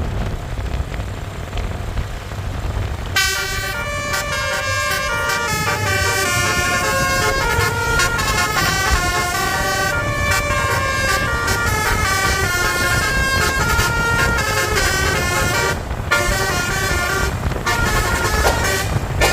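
Bus engine and road rumble, then about three seconds in a bus's Basuri telolet multi-tone horn set starts playing a melody: several horn notes sounding together and stepping from pitch to pitch, with a couple of brief breaks near the end.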